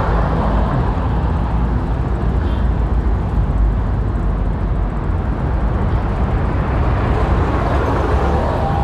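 Steady traffic noise from cars and vans passing on the road alongside, mixed with a low wind rumble on the handlebar-mounted camera's microphone as the bike rolls.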